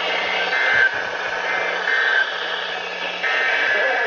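NOAA Weather Radio SAME alert header: bursts of data tones about a second long, repeated with short pauses, over a hiss of radio static.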